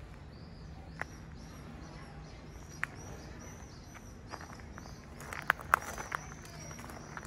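Small birds chirping repeatedly over a steady low background hum, with a few sharp crunches of footsteps on gravel, most of them about five to six seconds in.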